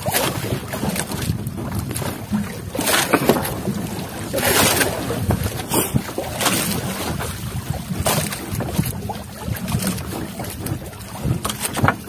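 Wind buffeting the microphone and sea water slapping against a small fishing boat in rough waves, with irregular gusts and splashes every second or so.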